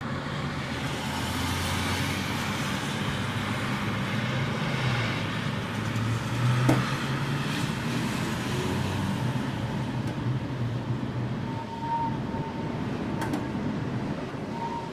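Winter storm wind rushing and gusting, with a low rumble beneath it and a single sharp knock about halfway through.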